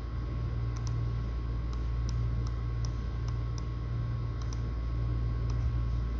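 Light, irregular clicks, about a dozen over a few seconds, over a steady low electrical hum.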